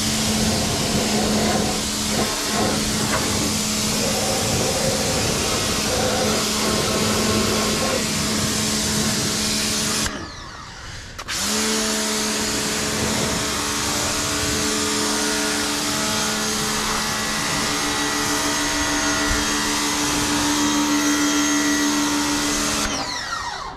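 Ingco 1400W electric pressure washer running, its motor humming steadily under the hiss of water spraying from the lance. About ten seconds in, the motor stops for about a second, then spins back up and runs on until it stops near the end.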